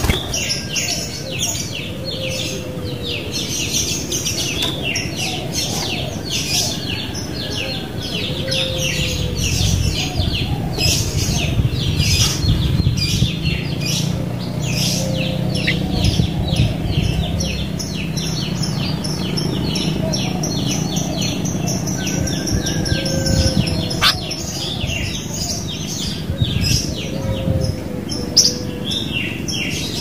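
Sooty-headed bulbuls (kutilang) calling: a dense, continuous chatter of rapid high chirps, with a few short lower whistled notes scattered through.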